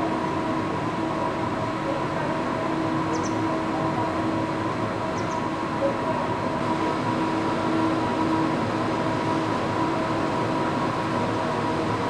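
Heavy construction machinery running with a steady drone and several steady humming tones, at a tunnel shaft where a crawler crane is lowering a suspended concrete mixer truck.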